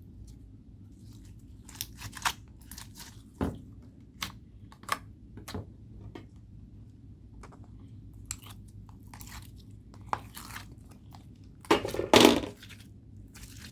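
Homemade slime being squished and mixed by hand, giving irregular sticky clicks and small pops, with a louder cluster of squelches near the end.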